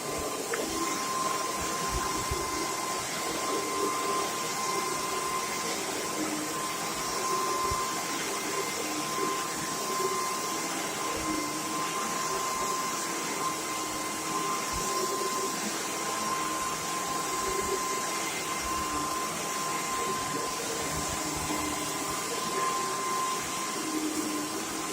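Vacuum cleaner motor running steadily, with a constant whine over its airflow noise.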